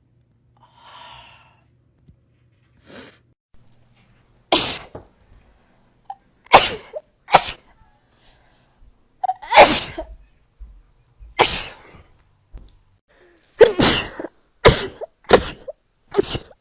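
A person sneezing again and again: about nine sharp sneezes, several in quick succession near the end, with faint breaths drawn in during the first few seconds.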